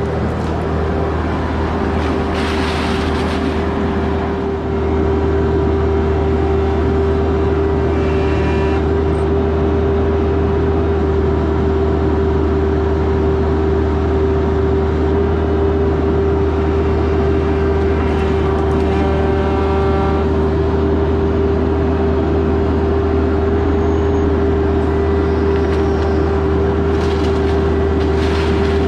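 Bobcat E26 mini excavator running steadily while digging: a diesel engine drone with a strong steady hum, getting louder about five seconds in.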